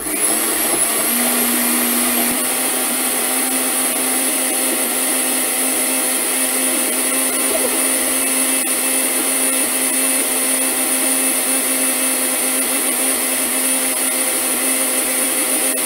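Countertop blender running steadily on its smoothie setting, grinding up a roast beef sandwich, fries, soda and a few ice cubes into a liquid. The motor switches on at the start and runs at a constant pitch throughout.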